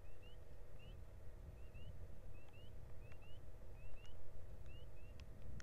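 A small bird chirping: short rising chirps, often in pairs, repeating about twice a second over a low rumble, with a few faint ticks.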